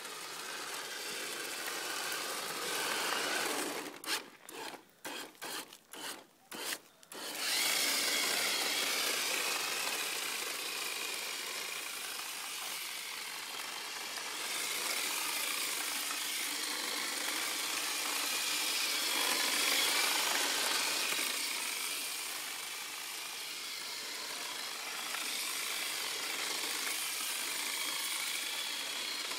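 Radio-controlled 4x4 drift car running on asphalt: its small motor whines, rising and falling with the throttle, over the hiss of its tyres scrubbing as it slides. About four seconds in the throttle is blipped in six or seven short bursts before the car runs on continuously.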